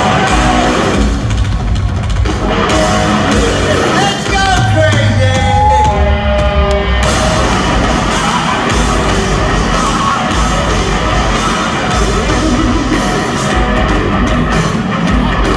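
Live heavy metal band playing loudly in an arena: distorted electric guitar over drums, with a guitar line that bends up and down in pitch about four to seven seconds in. The sound is a crowd-level recording with the hall's echo.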